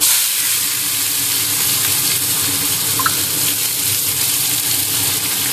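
Sliced onions and crushed garlic frying in hot oil in a kadai: a loud, steady sizzle that starts abruptly as the onions go into the oil.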